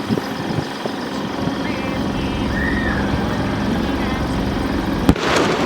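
Fireworks display heard amid the murmur of a crowd of spectators, with a few faint pops and a sharp firework bang about five seconds in, followed by a brief crackling rush.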